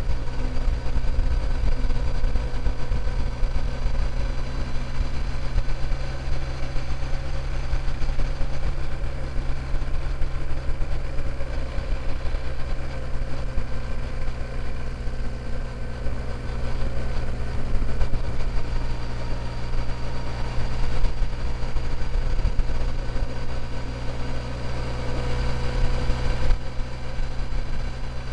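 Motorcycle engine running at a steady cruising speed on the highway, with a low rumble of wind and road noise on the microphone.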